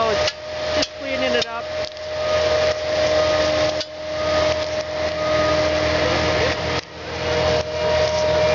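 The diesel engine of a Bobcat S630 skid-steer loader running at a steady speed: a steady whine over a rushing hiss. Brief voices near the start.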